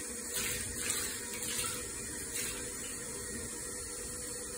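Water running steadily, with a few soft splashes from a cat being washed in a plastic bucket of water.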